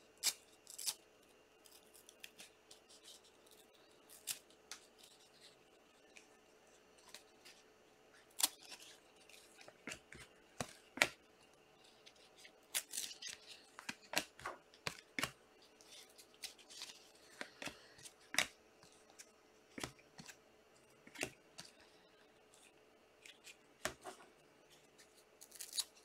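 A stack of glossy Panini Prizm trading cards being flipped through by hand, the cards giving irregular sharp clicks and soft slides as each one is moved to the back. A faint steady hum runs beneath.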